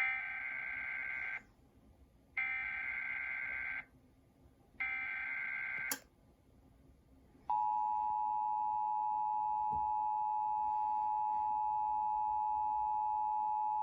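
Emergency Alert System tones heard over a radio broadcast. First come three bursts of SAME header data tones, each about a second and a half long, which encode the Required Monthly Test. Then, about seven and a half seconds in, the steady two-tone attention signal starts and holds.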